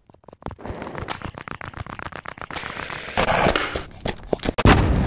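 Logo intro sound effect: a rapid run of sharp clicks and hits that grows denser and louder. Two loudest hits come about three and about four and a half seconds in, and it cuts off just after the end.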